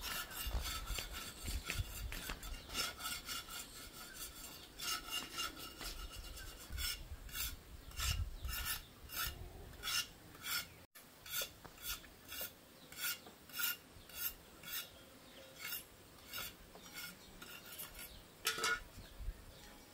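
Bark being scraped off freshly cut medicinal-plant stems in repeated rasping strokes. The strokes are irregular at first and settle to about two a second in the second half.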